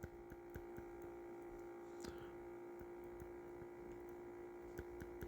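Faint steady electrical hum at one fixed pitch, with a few soft ticks scattered through it.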